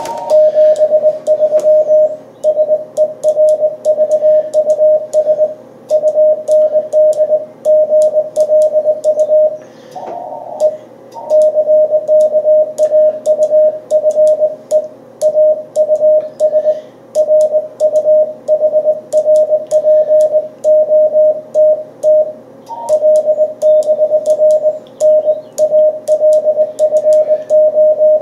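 Morse code (CW) from an amateur radio transceiver on 40 m: a steady single tone keyed on and off in dots and dashes, with a higher-pitched tone cutting in briefly twice and faint clicks alongside.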